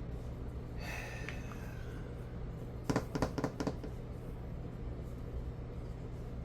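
Plastic Lego bricks being handled and clicked together: a quick run of about six sharp clicks about three seconds in, after a faint rustle, over a steady low hum.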